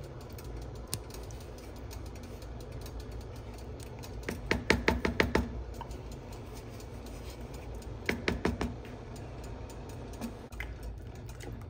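A cooking utensil clicking rapidly against the pot in two short runs, about eight quick clicks a third of the way in and about five more a little later, while the peach cobbler filling is stirred. A steady low hum sits underneath.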